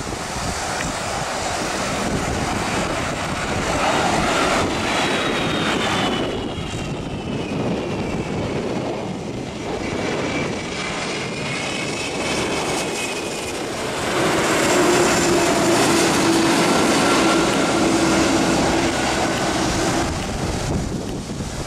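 Airbus A330 twin-engine jet airliner passing low overhead on landing approach: steady jet engine noise with thin whining tones that slide down and up in pitch, louder for the last third of the pass.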